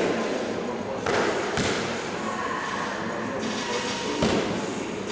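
Boxing gloves striking focus mitts: several sharp punch thuds spaced irregularly, a close pair about a second in and another near the end, in a large bare hall.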